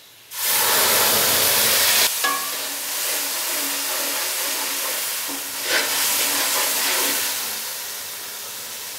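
Wet ginger, garlic and green chilli paste hitting hot oil in an aluminium karahi: a loud sizzle that starts suddenly about a third of a second in as the watery paste meets the oil, then slowly dies down toward the end. A metal spatula stirs it, knocking against the pan twice.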